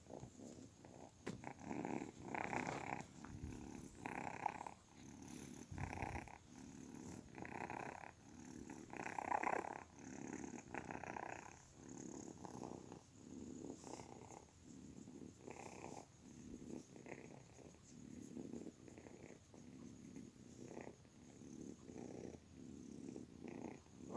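Kitten purring, a soft rumble that swells and fades in a regular rhythm, about one swell every second and a half.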